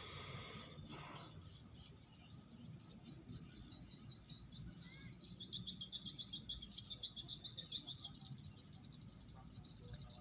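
Insects, likely crickets, trilling in a fast pulsing chorus that carries on steadily, with a brief burst of rustling noise right at the start.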